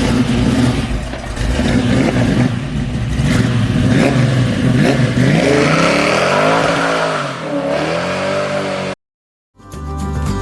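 An engine revving, its pitch swinging up and down several times, then cut off suddenly near the end.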